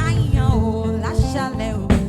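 Praise music with a band: a singing voice with sliding notes over steady low bass notes and drum hits, including a sharp strike near the end.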